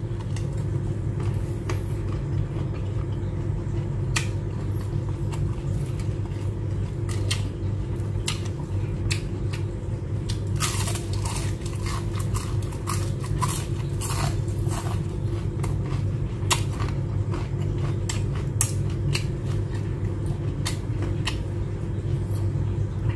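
Close-up eating sounds: chewing and crunching mouthfuls of food, starting with a bite into a raw green chili, with a dense run of crackling bites about halfway through. A steady low hum runs underneath.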